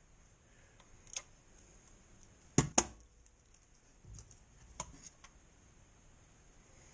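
A few sharp plastic clicks and taps from a Logitech M570 wireless trackball mouse being handled; the loudest is a quick double click about two and a half seconds in.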